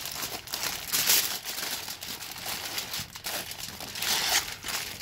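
Sheets of aluminium foil crinkling and crumpling as hands fold and press them tightly around a pork butt, in several short rustling bursts, the loudest about a second in and another around four seconds.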